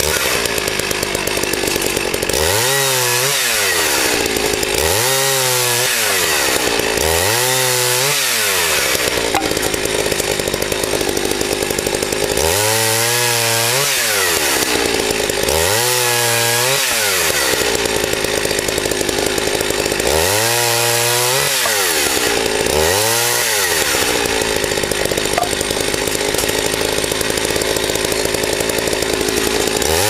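Two-stroke chainsaw running and cutting through logs into firewood rounds. Its engine pitch rises and falls back about eight times over the stretch.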